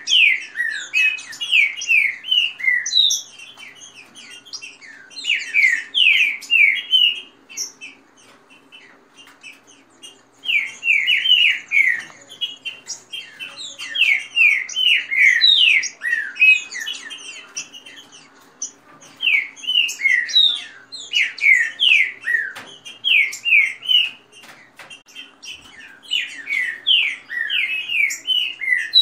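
Green-winged saltators (trinca-ferro) singing in a contest: fast bouts of sharp, sliding whistled notes, each bout two to three seconds long, repeated about every four to six seconds with short gaps between.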